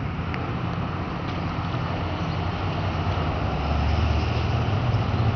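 Steady low engine rumble, growing louder about three and a half seconds in.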